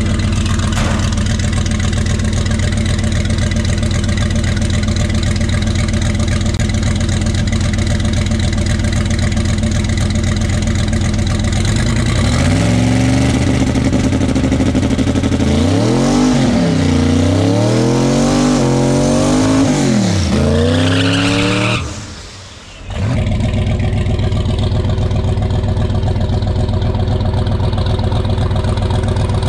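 Twin-turbo big-block Chevy V8 idling steadily, then, about twelve seconds in, revved up and down several times, with a rising high whine on the last rev. After a brief drop-out it settles back to a steady idle.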